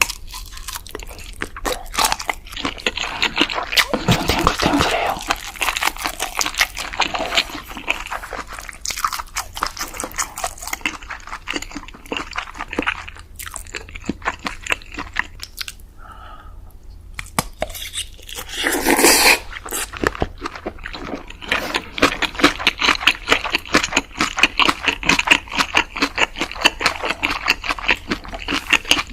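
Close-miked eating sounds: a person chewing and crunching chicken, a dense run of crackly crunches with a louder crunch about two-thirds of the way through.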